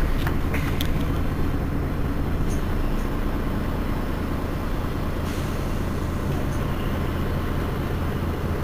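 Mercedes-Benz Citaro city bus's diesel engine running with a steady low drone, with a few light clicks about half a second in.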